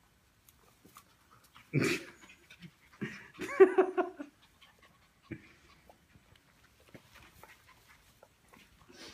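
Two puppies play-fighting: a short loud vocal burst about two seconds in, then a longer run of pitched puppy yipping and whining about a second later, and a single soft thump shortly after, with faint rustling between.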